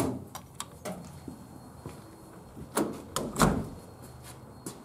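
Restroom door being worked and pulled shut: a few small latch clicks, then two knocks about half a second apart, the second the loudest, with a low thud.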